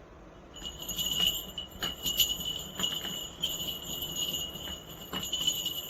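A small jingle bell ringing steadily, with irregular sharper jingles as it is shaken.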